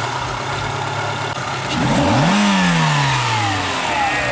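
Renault Clio 172's four-cylinder petrol engine idling just after a start, with one rev about two seconds in that rises and falls back to idle. It is running smoothly on all four cylinders again now that the faulty injector has been replaced.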